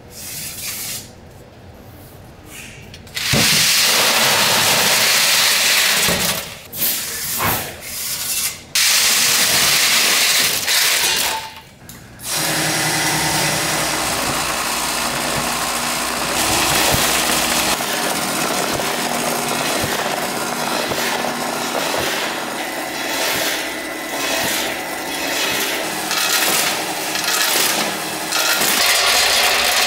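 Snack-factory machinery running: two loud bursts of noise in the first twelve seconds, each stopping abruptly, then steady machine running with a low hum.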